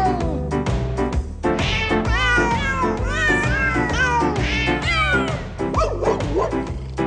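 Novelty 'singing cats' song: recorded cat meows, each tuned to a note, carry the melody one after another over a backing track with a steady beat.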